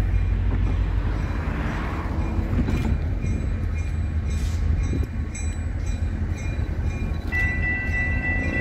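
EMD GP40-2 diesel locomotive rumbling as it approaches slowly. Near the end its Nathan RS-3L three-chime air horn starts sounding a steady chord.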